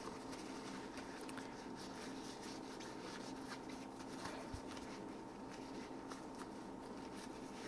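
Faint rubbing of a rag dampened with alcohol, wiping out the inside of a dropper-post part, with a few light ticks over a steady low hum.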